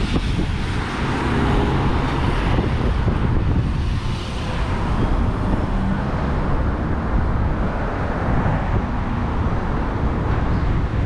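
Road traffic going by, swelling as vehicles pass, with wind rumbling on the microphone.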